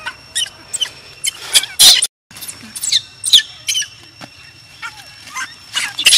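Baby macaque crying: a run of short, shrill squealing cries, about two or three a second, with a brief dropout about two seconds in. The uploader puts the crying down to hunger, the infant not yet having had milk.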